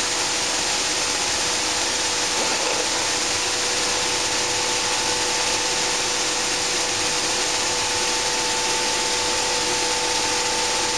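Sunflower seed hulling and separating machinery running: motor-driven vibrating screens shaking seeds and hulls, with air ducts and cyclones, make a steady, dense rushing rattle over a steady two-tone machine hum.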